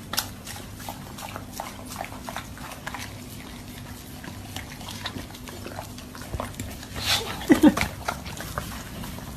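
A dog makes a short, bending, whine-like vocal sound about seven and a half seconds in, among light clicks and taps over a low steady hum.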